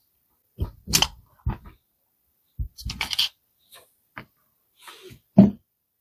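Clicks, knocks and clatter of a cordless sabre saw's casing and parts being handled while it is taken apart. Several short clusters, with the loudest knock near the end.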